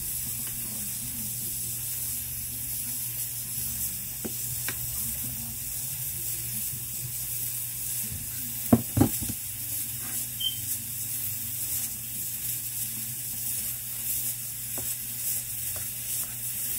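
Hands squeezing and stirring stiff flour-and-cornmeal dough in a stainless steel bowl, over a steady hiss and low hum. About halfway through come two sharp knocks close together as more water is poured in from a plastic tub.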